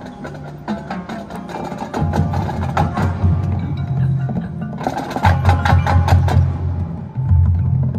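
Marching band playing its field show: rapid percussion strikes and mallet notes over sustained low notes, which swell louder about two seconds in and again about five seconds in.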